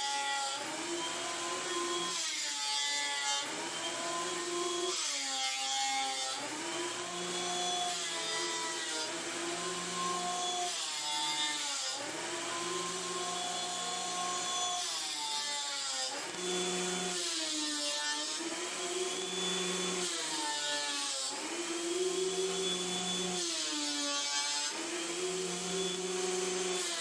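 Electric planer cutting rough-sawn maple boards, its motor tone dipping repeatedly as it takes each cut and recovering between them.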